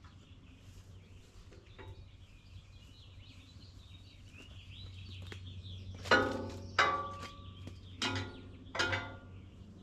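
Small birds chirping, over a low steady hum. From about six seconds in come four short, loud pitched calls in two pairs, the loudest sounds here.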